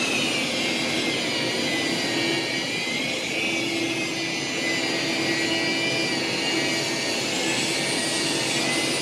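Electric rotary polisher running steadily while buffing a fibreglass yacht hull, a high motor whine that wavers slightly in pitch as the pad is worked over the gelcoat.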